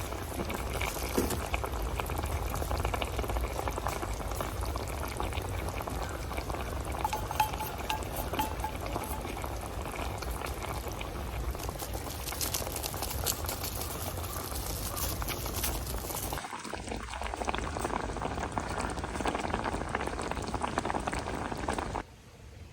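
Liquid boiling in a pot, a steady bubbling full of fine crackles, which cuts off suddenly near the end.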